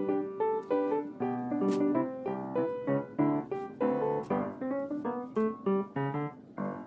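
Background piano music, a melody of quickly struck notes.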